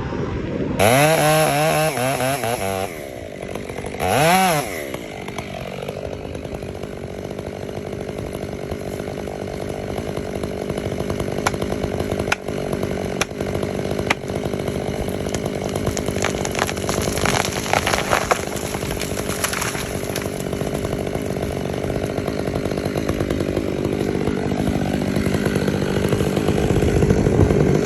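Stihl 500i fuel-injected two-stroke chainsaw revved up twice in the first few seconds, then held at full throttle under load for a long, steady cut into the tree.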